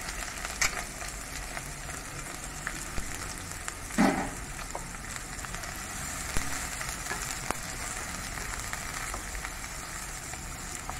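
Chopped onions, green chillies and curry leaves sizzling steadily in hot oil in a non-stick kadai as a spatula stirs them, with a few light clicks and one brief louder sound about four seconds in.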